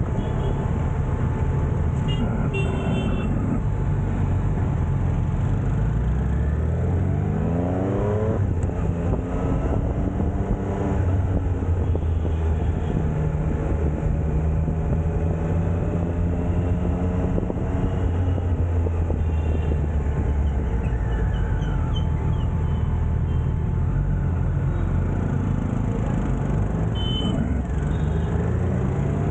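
Triumph Street Triple RS three-cylinder engine under way in city traffic: the revs climb through a gear about seven seconds in, then it runs steadily. Brief horn toots sound near the start and again near the end.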